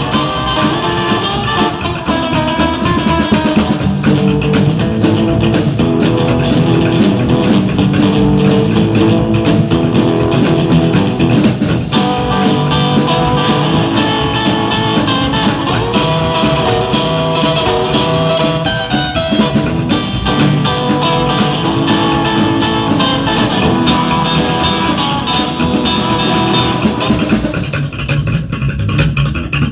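Psychobilly band playing an instrumental passage: electric guitar over upright bass and a driving drum kit. The sound thins out about two seconds before the end.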